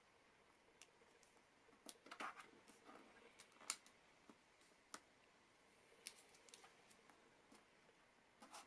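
Thin origami paper being folded and creased by hand, with soft crinkles and scattered sharp crackles. A short rustle comes about two seconds in, and the loudest crackle comes a little later.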